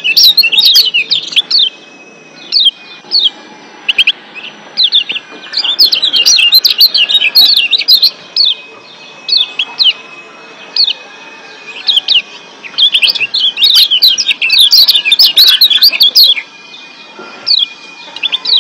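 Yellow white-eye (Lombok kecial kuning) calling in bursts of rapid high 'ciak' chirps, chattering for up to a few seconds at a time with short pauses between.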